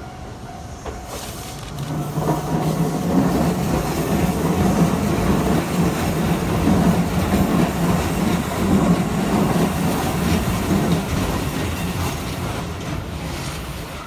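Keisei 3600 series electric train running past over a level crossing: its wheels and running gear rumble on the rails, loud from about two seconds in and fading near the end.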